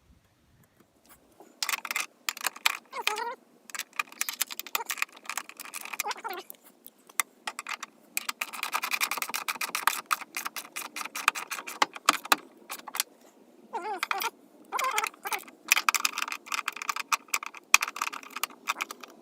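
Repeated irregular bursts of metallic clicking and jangling, with short gaps between them.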